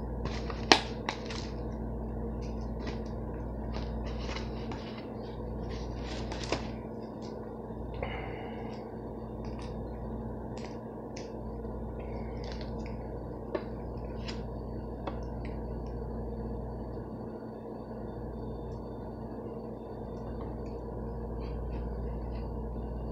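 Plastic food packaging and food being handled: scattered crinkles and sharp clicks, busiest in the first half, over a steady low hum.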